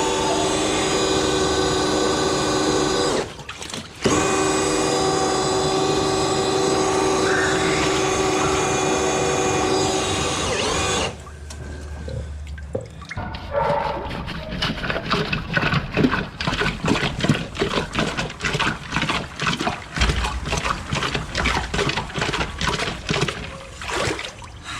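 A powered drain-cleaning machine runs with a steady mechanical hum, cutting out briefly a little after three seconds in. It stops about eleven seconds in, and a fast, irregular clattering and knocking follows.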